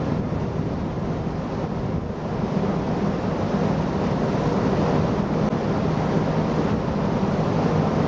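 Wind buffeting the microphone over rough open sea, with a steady low engine hum from a ship.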